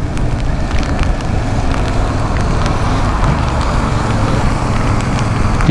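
Yamaha MT-07 parallel-twin engine running steadily while riding, under a constant rush of wind and road noise.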